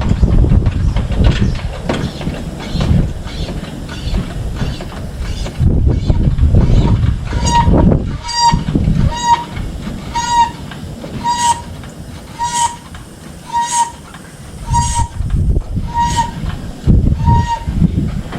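Loud, uneven rumbling noise, joined about a third of the way in by a series of about ten short, evenly spaced electronic beeps, roughly one a second, which stop shortly before the end.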